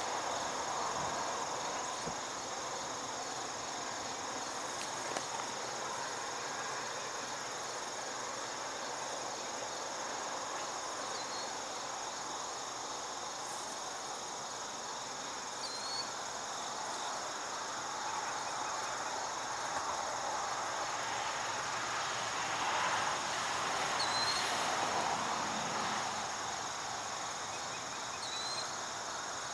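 Steady chorus of crickets and other insects, with a few short high chirps scattered through it and a faint rushing haze that swells about two-thirds of the way in.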